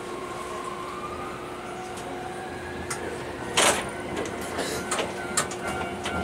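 Tokyu Setagaya Line tram heard from the cab: a steady electrical hum, then a short, sharp hiss of compressed air a little past halfway, followed by a few clicks.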